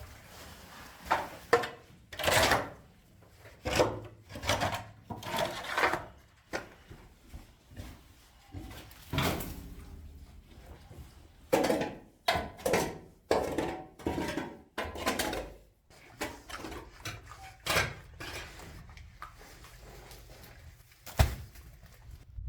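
Irregular knocks, scrapes and rubbing of hard objects being handled, about twenty separate sounds with short pauses between them and a sharp knock near the end.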